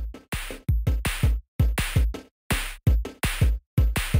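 Electronic background music with a drum-machine beat: deep kick drums that drop in pitch, each with a sharp hit on top, in a choppy rhythm broken by short silences.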